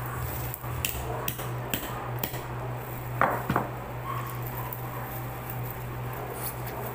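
Tableware and crab shell clicking and knocking on the table as crabs are picked apart by gloved hands, with two louder knocks a little past halfway. A steady low hum runs underneath.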